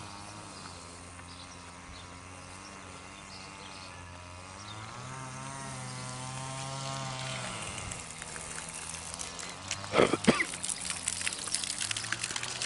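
Garden fountain splashing into its pond: a steady hiss of falling water with small crackling splashes that comes in about eight seconds in, after a steady hum that wavers slowly in pitch. Two loud bumps about ten seconds in.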